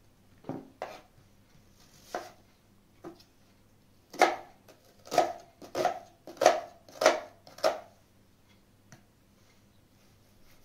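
Knife chopping on a cutting board: a few scattered strokes, then a run of about seven firm chops at roughly two a second.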